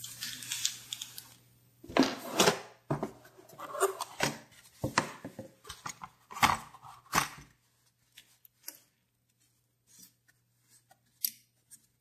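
Hands handling small plastic zip bags and a cardboard parts box: a run of sharp rustles and knocks for the first several seconds, thinning to a few light clicks near the end.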